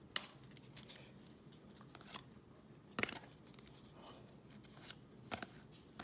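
Baseball trading cards being flicked through by hand, card stock snapping and sliding against card stock in a few sharp flicks: one near the start, one about three seconds in, and a quick pair a little after five seconds.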